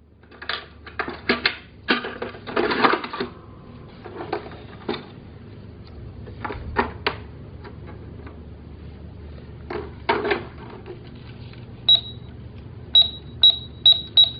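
Toy plastic cash register being handled: scattered clicks and clatter of plastic parts, then about five short, high electronic beeps near the end.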